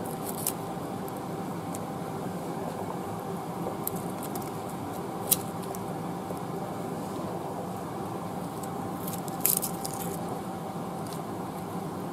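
Raw onion rings being laid by hand onto fish fillets in a baking tray: a few light clicks and taps, a sharper one about 5 s in and a short cluster near 9.5 s, over a steady kitchen hum.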